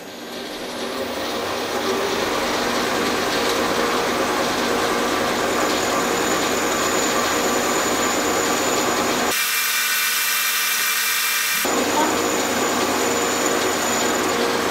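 Metal lathe running at speed while a brazed carbide tool takes a finishing cut along a cast aluminium part. The sound builds over the first couple of seconds, then runs steadily. About two-thirds of the way in, it turns thin and hissy for a couple of seconds before the full sound comes back.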